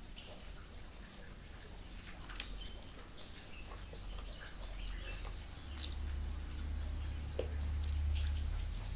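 Close-up eating sounds: a person chewing, with small wet mouth clicks and smacks and one sharper click about two-thirds of the way through. A low rumble comes up in the second half.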